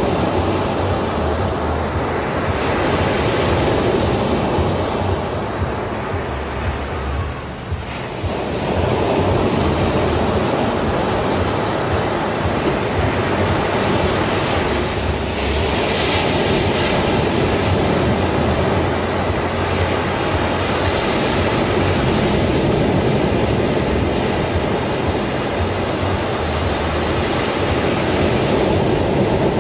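Sea surf: waves breaking and washing up onto a sandy beach, a continuous hiss that swells as each wave breaks and eases as it runs out, with a brief lull about eight seconds in.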